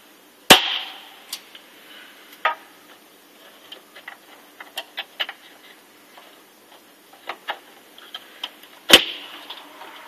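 Memory sticks being pressed into a Dell Optiplex GX620's DIMM slots: two loud sharp snaps, about half a second in and near the end, as the slot's retention clips latch and each stick seats, with lighter clicks and ticks of handling in between.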